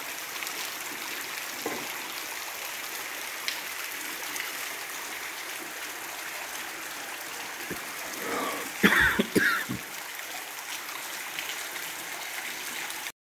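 Steady rain falling on a cobblestone street, with runoff water streaming over the stones. A brief human vocal sound, like a cough, comes about nine seconds in.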